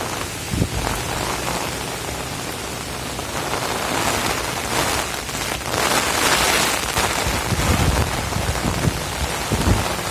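Heavy rain pouring steadily, growing louder for a stretch about six seconds in, with low rumbles of wind toward the end.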